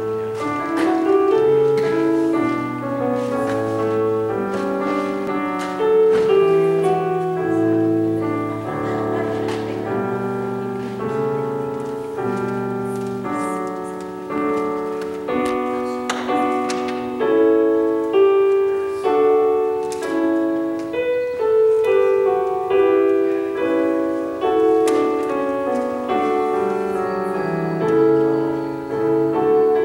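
Solo piano playing a slow piece, notes and chords held about a second each.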